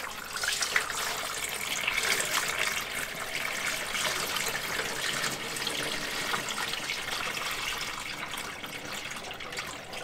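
Water poured from a metal cooking pot, splashing steadily into a shower pan and running down the drain, thinning out near the end.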